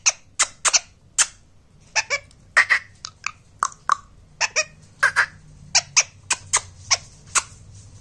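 Rose-ringed (Indian ringneck) parakeet giving a string of short, sharp chirps and squeaks, irregularly spaced at about two or three a second.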